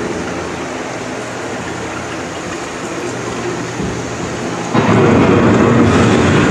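Recorded thunderstorm effect played over the ride's speakers: a steady rushing of rain with thunder rumbling, which swells suddenly louder about five seconds in.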